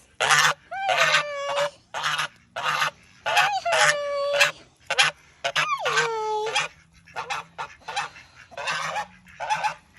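Goose honking over and over in loud, falling-pitched calls, which turn fainter after about seven seconds.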